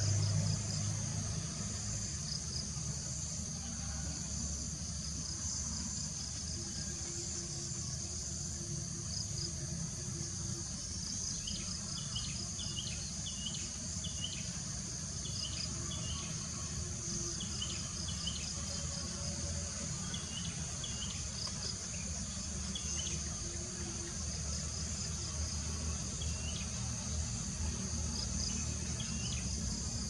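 A steady, high-pitched insect chorus over a low rumble. From about twelve seconds in, a small bird gives short chirps in quick groups of two to five.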